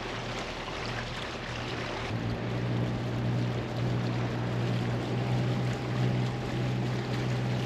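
Leopard 45 catamaran's diesel engine running steadily at low speed, a low hum that grows a little louder about two seconds in, over a hiss of wind and water along the hull.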